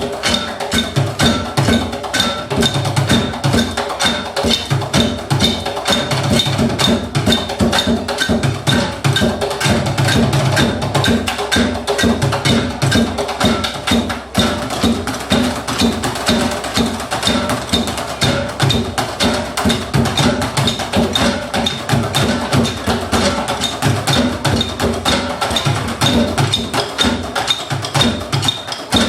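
Live percussion music: fast, dense strikes in a steady rhythm, wood-block-like, over a recurring low pulse.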